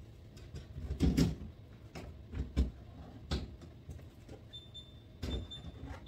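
Knocks and thuds of plastic milk jugs and food containers being shifted around on refrigerator shelves: four or five separate bumps, the loudest about a second in.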